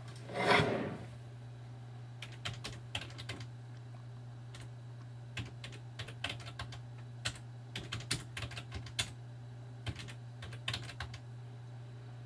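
Typing on a computer keyboard: irregular clusters of keystrokes. A short, loud burst of noise comes about half a second in, over a steady low hum.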